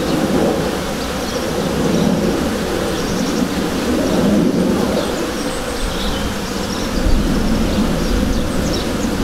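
Swarm of honeybees buzzing in flight around two hive entrances, a dense steady hum that wavers in strength: colonies out on their early-spring cleansing flight. A low rumble joins in near the end.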